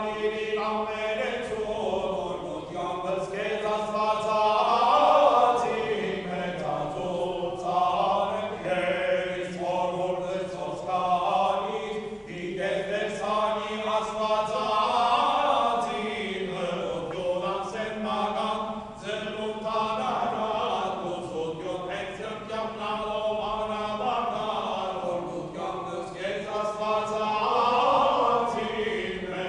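A men's choir chanting an Armenian church hymn in long phrases that rise and fall.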